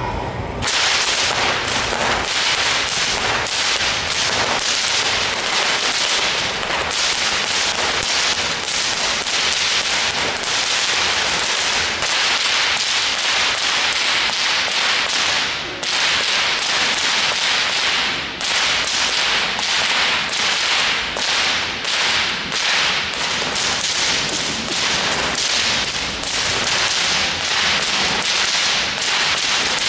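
Two whips cracked one in each hand in a fast, unbroken stream of sharp cracks, several a second, beginning about half a second in, with only a couple of momentary gaps in the middle.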